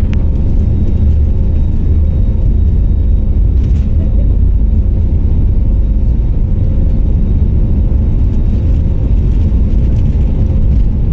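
Steady low rumble of an airliner, heard from inside the passenger cabin, with faint steady tones riding above it.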